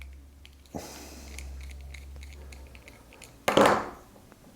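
Small metal banana-plug parts being handled while the grub screw is loosened: a light click about a second in, a few faint ticks, then a brief scraping rustle about three and a half seconds in.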